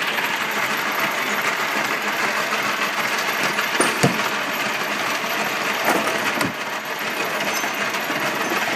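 Steady mechanical running noise, with a few sharp metallic clinks about four, six and six and a half seconds in.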